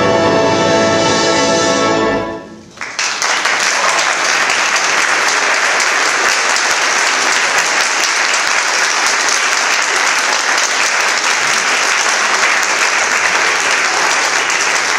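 A concert band holds a loud final chord that cuts off about two and a half seconds in. After a brief gap, the audience breaks into steady applause that carries on to the end.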